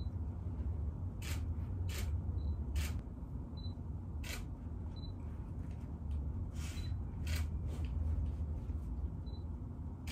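Camera shutter firing again and again, about eight sharp clicks at irregular intervals, some in quick pairs, over a steady low hum, with a few faint short high beeps between shots.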